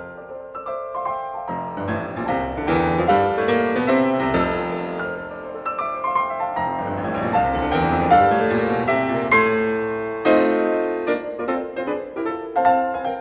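Piano music: a quick run of notes with chords underneath, lively and continuous.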